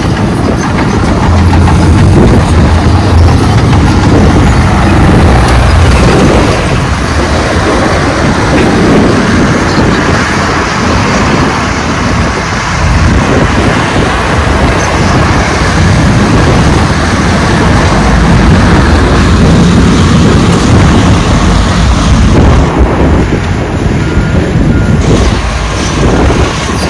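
Dump truck's diesel engine running steadily with a deep rumble while its raised tipper body unloads a load of sand.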